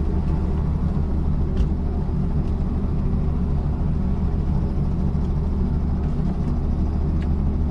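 Light aircraft's piston engine running in a steady, even drone, heard from inside the cockpit.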